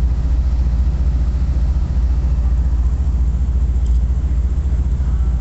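Steady low rumble of the moving Copper Canyon passenger train, heard from on board.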